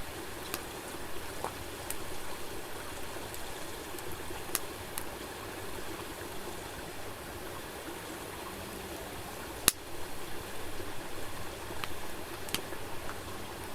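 Campfire burning with a steady hiss and scattered sharp crackles and pops of the burning wood, the loudest pop about ten seconds in.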